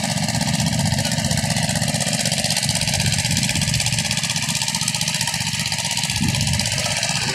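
Small engine on a water-well drilling rig running steadily at an even pace.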